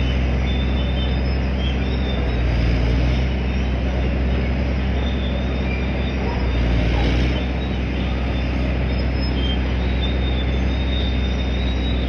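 Diesel engine of a 1956 Caterpillar D9 crawler tractor running under load, a steady heavy drone, with short high squeaks coming and going. The engine swells briefly about seven seconds in, then eases slightly.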